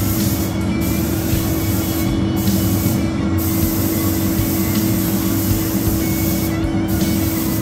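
Compressed-air paint spray gun hissing steadily as it sprays paint, with a few brief breaks in the hiss as the trigger is let off between passes, over a steady low hum.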